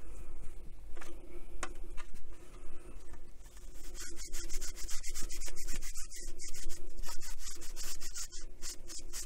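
Leather-care wipe rubbing over the textured covering of a Roberts RIC1 radio case in quick repeated strokes, getting stronger and more continuous from about three and a half seconds in.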